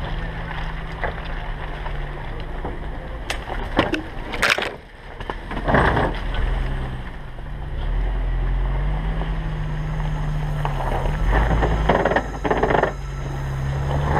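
Lifted Suzuki 4x4's engine running at low trail speed, its note rising and falling with the throttle. Short knocks and scrapes come a few times, around four and six seconds in and again near the end, as the body and brush are jolted and brushed on the rough trail.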